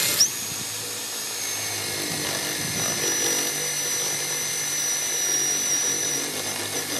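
Power drill boring out a spot weld in the steel sliding door sill of a VW T4 van, running at a steady speed with a constant high-pitched whine. It stops suddenly near the end.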